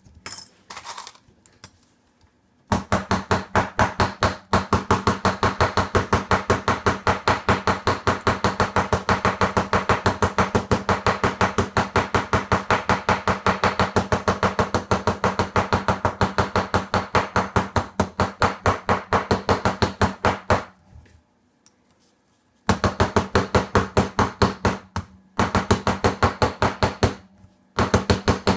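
Hammer striking small metal jewellery pieces on a steel bench block in a fast, even run of blows, each with a short metallic ring from the block. The hammering stops briefly near the start and for about two seconds around 21 s in, then resumes in shorter runs.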